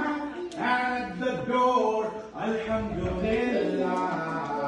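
A man singing a slow, chant-like song, holding long notes that slide between pitches.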